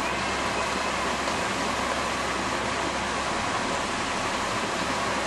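Steady, even rushing noise with no distinct events, keeping the same level throughout.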